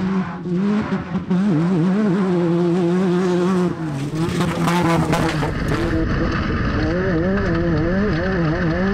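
Class 10 off-road race car's engine running at speed, its pitch wavering up and down continuously. The sound turns duller about six seconds in.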